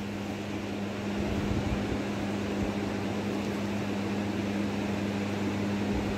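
Steady low electrical hum with an even hiss over it, and a few soft low thumps about a second and a half in and again near the end.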